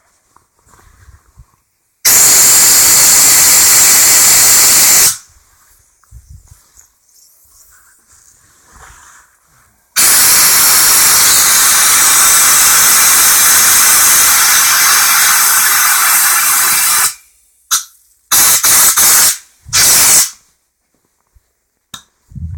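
Compressed air from a Central Pneumatic 10-gallon air compressor hissing out loudly as pressure is bled off toward about 40 psi. There is a blast of about three seconds, a longer one of about seven seconds, then three short bursts in quick succession.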